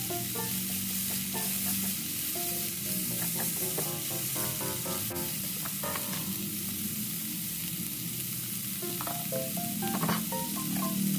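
Vegetables sizzling steadily as they are stir-fried in a hot pan, stirred with a spatula that knocks against the pan a few times, once about six seconds in and again about ten seconds in.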